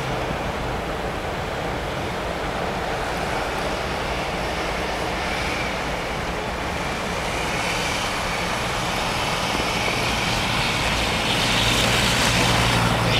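Chevrolet Astro minivan's engine running hard as the van drifts in circles on snow, with its tyres spinning. It grows louder near the end as the van passes close, throwing up snow.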